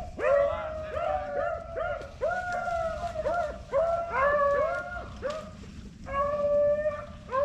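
Beagles baying on a rabbit's scent: a fast run of short, overlapping bawls from several dogs, then one long drawn-out howl near the end.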